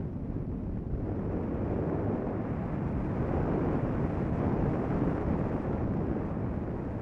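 Airflow rushing over the microphone of a camera mounted on a tandem hang glider's frame as it glides low on its landing approach. The rushing is steady, swelling toward the middle and easing a little near the end.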